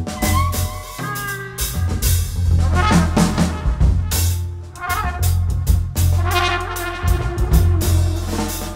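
Live small-group jazz: a trumpet plays a melodic line over plucked double bass and a drum kit, with frequent cymbal and drum strokes.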